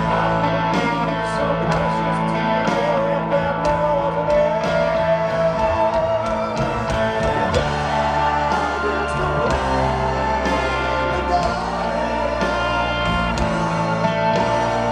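Live rock band playing a slow song: sustained guitar chords over a changing bass line, with a voice singing a melody over them.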